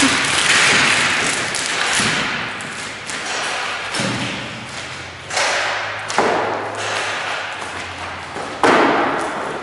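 A run of heavy thuds, about five over the stretch, each sudden and dying away quickly with an echo of a large room, and a low steady hum in the middle.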